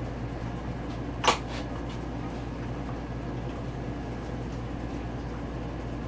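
Yamaha YZ250F dirt bike being kick-started: one sharp knock about a second in, over a steady low hum, and the engine does not fire. It fails to catch because there is still air in the fuel line after the fuel-pump replacement, and the pump is only powered while kicking.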